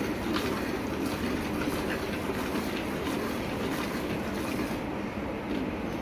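Milk squirting into a steel pail in rhythmic spurts as a cow is milked by hand, about two squirts a second, over a steady low rushing noise.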